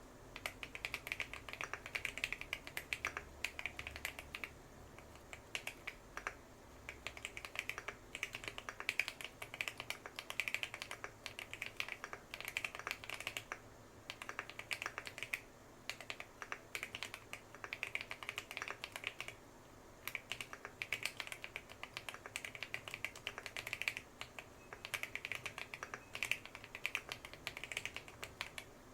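Fast typing on a custom 65% mechanical keyboard with tape-modded case and PBT cherry-profile keycaps: rapid runs of crisp keystroke clacks with brief pauses between bursts.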